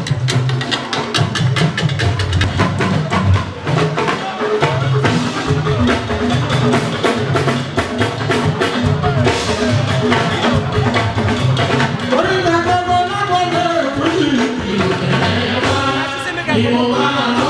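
Fuji band music: busy drum percussion throughout, with a lead voice singing in two stretches, about twelve seconds in and again near the end.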